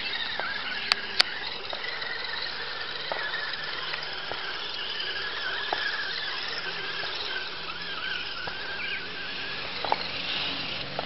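Everest-10/SCX10 hybrid RC crawler's electric motor and drivetrain whining, the pitch wavering up and down with the throttle as it drives through a water-filled ditch. Two sharp clicks about a second in.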